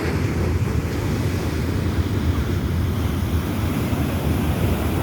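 Sea waves surging and washing on a beach, with wind buffeting the microphone as a heavy low rumble.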